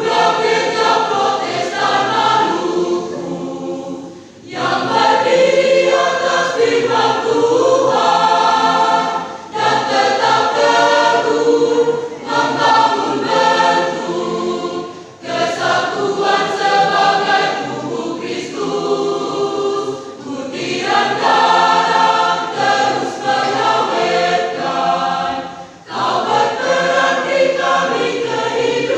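Church choir singing a sacred song, phrase after phrase with brief breaks between phrases.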